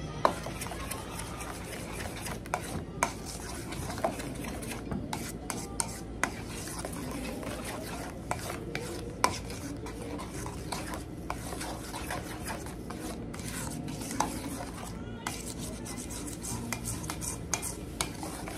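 A spoon stirring bang bang sauce in a stainless steel mixing bowl: continuous wet scraping against the metal, with a sharp clink of spoon on bowl every few seconds.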